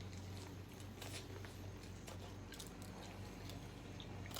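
Close-up chewing and biting of food, with scattered wet mouth clicks, over a steady low hum.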